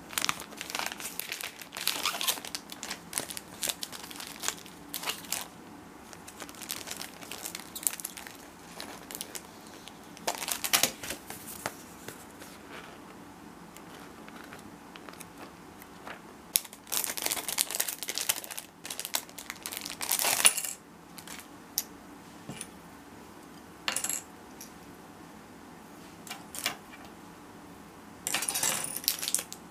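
Clear plastic packaging crinkling and paper rustling in irregular bursts as a spirograph ruler set is unpacked by hand, with light clicks and clinks of the plastic gears and template being handled.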